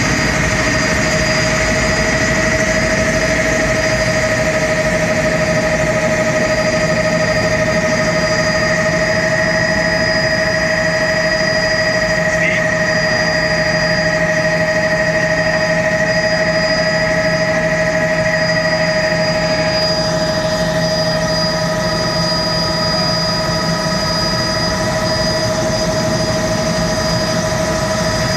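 Helicopter in steady cruising flight heard from inside the cabin: a constant engine and rotor drone with a steady high whine over it.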